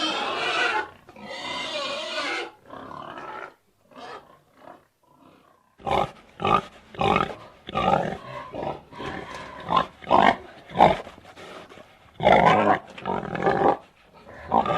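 Pigs calling: loud squeals in the first couple of seconds, then after a brief lull a string of short grunts, about two a second, with one longer drawn-out call near the end.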